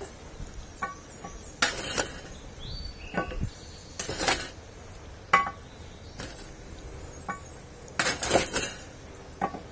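Metal tongs clinking and scraping against a cast iron camp Dutch oven's lid and a charcoal chimney as hot coals are picked up and set on the lid: a string of about ten short, sharp metallic clinks, some ringing briefly, with a busier cluster near the end.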